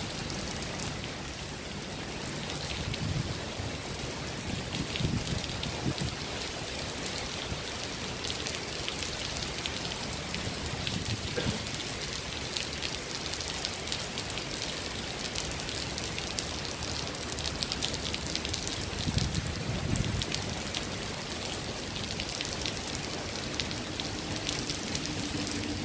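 Heavy rain falling on wet stone paving: a steady hiss full of fine drop ticks, with a few brief low rumbles. Runoff spills from the edge of the shelter roof onto the paving.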